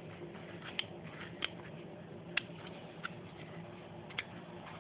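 About five short, sharp clicks and taps, roughly a second apart, from a small screwdriver working the spring wire clamps of a plastic solar-panel junction box, over a faint steady hum.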